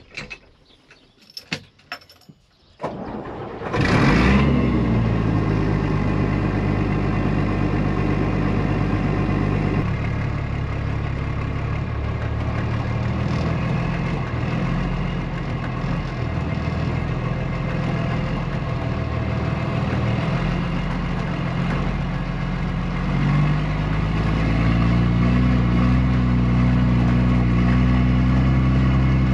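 A few clicks, then a tractor engine is started about three seconds in and runs steadily. Its speed rises in the last several seconds as it is throttled up.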